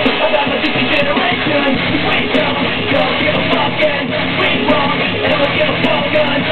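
Loud, fast hard rock music with shouted vocals, playing without a break.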